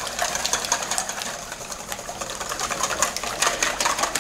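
Wire whisk beating eggs in a stainless-steel bowl: rapid, rhythmic clicking of the wires against the metal.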